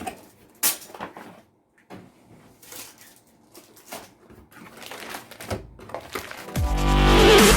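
Scattered light clicks and rustles of computer parts (a motherboard and its SATA cable) being handled. Near the end, electronic music with a heavy bass beat comes in.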